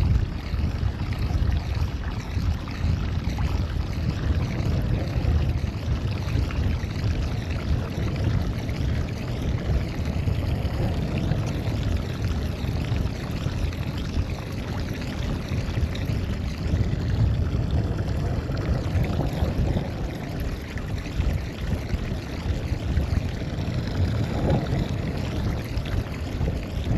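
Steady rushing noise of wind on the microphone and water moving around a small fishing boat, heaviest in the low rumble.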